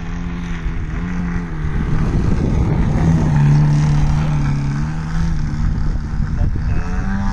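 Engine and propeller of a large aerobatic radio-controlled model plane, running steadily as the plane hangs nose-up in a prop hang. The pitch wavers slightly up and down, and the sound is loudest around the middle.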